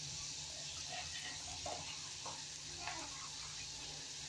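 Diced onion and garlic frying in oil in a stainless steel pan, a low steady sizzle.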